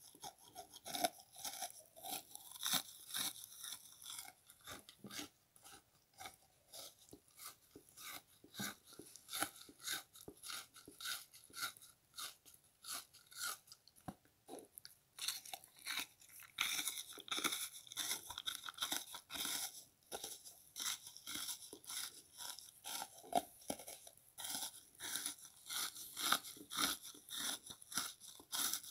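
Frozen bath sponge being chewed close to the microphone: a steady run of short, crisp crunches, one or two a second, growing louder and sharper past the middle.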